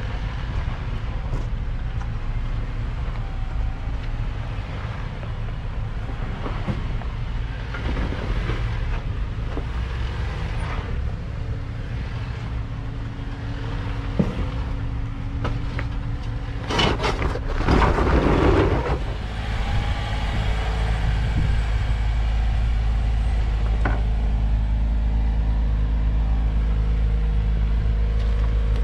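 Jeep Wrangler 4xe Rubicon crawling over slickrock, with a steady low rumble. A little past the middle there is a louder grinding stretch of about two seconds as the tyres work over the rock, followed by a steady hum.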